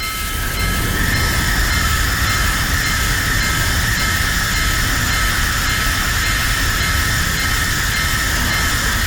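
A train passing a level crossing: a steady rumble and wheel hiss that builds up in the first second and then holds. Under it runs the crossing alarm's steady ringing tone.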